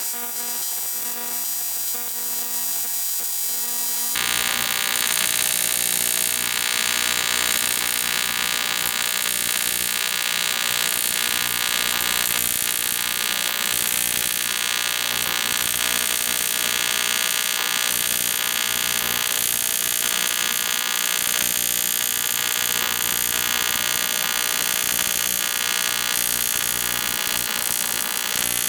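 TIG welding arc buzzing steadily for a long run. A quieter high-pitched hiss comes first; about four seconds in the arc strikes and the loud, even buzz takes over.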